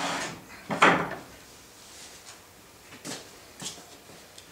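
A large wooden storage box sliding into place under a table saw, scraping along the angle-iron rails it rides on, with the loudest knock just under a second in. Two light knocks follow about three seconds in as it settles.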